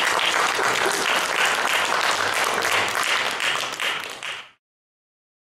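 Audience applauding, a dense patter of many hands clapping, dying away and cutting off about four and a half seconds in.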